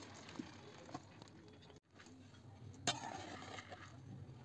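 Faint sound of dry split moong dal grains sliding from a strainer into a pan and being stirred with a spatula, with a short sharp click about three seconds in.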